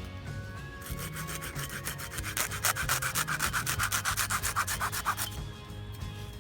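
Rapid, rhythmic scraping strokes, several a second, louder in the middle of the run and stopping suddenly, over quiet background music.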